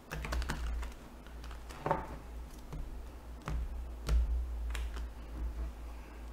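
A deck of large oracle cards, the Cosmic Reading Cards, being shuffled by hand: irregular card clicks and snaps, one or two a second.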